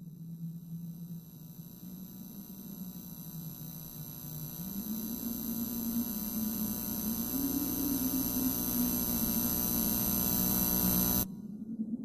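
A steady electrical hum with a thin high whine above it; about four and a half seconds in it rises in pitch and wavers as it grows louder, then it cuts off suddenly near the end.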